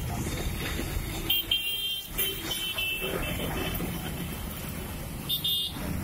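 Steady road-traffic rumble with vehicle horns honking several times, a couple of short honks in the first few seconds and another near the end.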